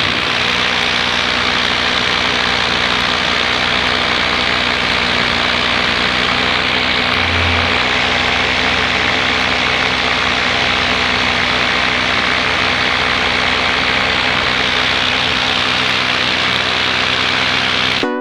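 Paramotor engine and propeller running steadily in flight: an even drone with a constant rushing hiss over it.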